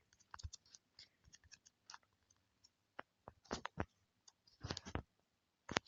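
Faint, irregular clicks of a message being typed, in uneven bursts with short gaps.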